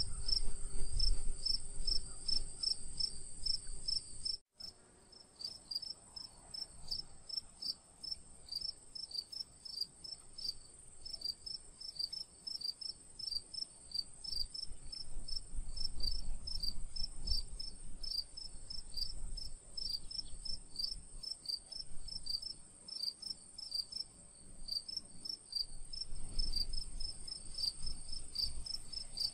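Crickets chirping in a fast, even rhythm over a steady high insect trill, with low rumbling now and then.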